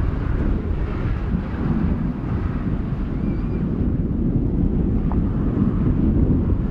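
Strong wind buffeting the microphone: a loud, steady low rumble with a hiss above it, growing a little louder near the end.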